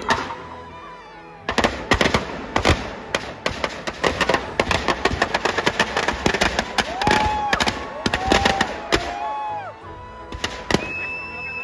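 Firecrackers packed inside a burning Dussehra effigy going off in a rapid, irregular string of loud bangs, with a few falling whistles among them. The bangs thin out near the end.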